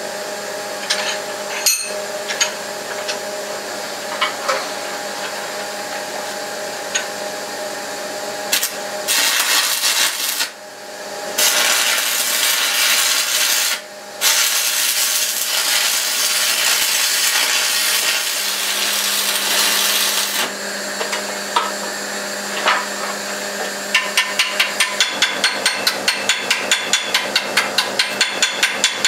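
Stick welder tack-welding the ends of a stacked steel Damascus billet held in a vise: three stretches of steady crackling hiss between about nine and twenty seconds in, with two short breaks. Near the end a chipping hammer taps quickly on the fresh weld, about five taps a second, knocking off slag, over a steady background hum.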